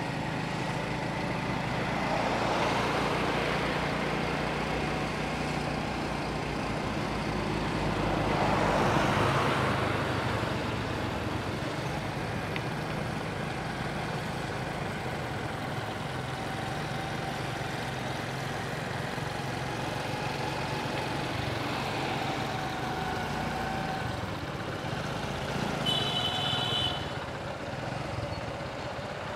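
A Honda motorcycle's engine running steadily while riding, with road and wind rush swelling twice. A short high-pitched horn toot sounds near the end.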